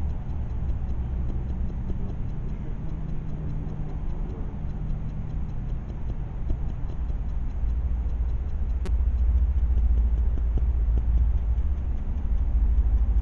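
A steady low rumble that grows louder about two-thirds of the way through, with a single sharp click at about the same point.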